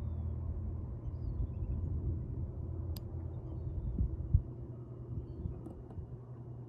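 Low, steady rumble of a distant powder-snow avalanche, set off by explosives, running down the mountainside. There are a couple of low thumps about four seconds in.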